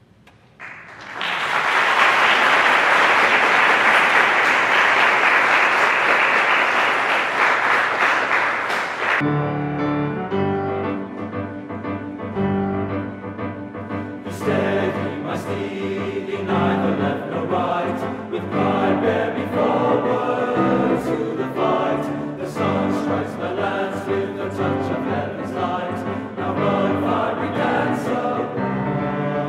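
Audience applause starting about a second in and lasting roughly eight seconds, then a tenor-tenor-bass choir singing with piano accompaniment.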